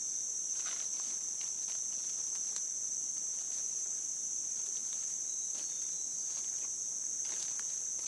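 Steady high-pitched drone of a forest insect chorus. Footsteps rustle through leaf litter and undergrowth a few times in the first few seconds and again near the end.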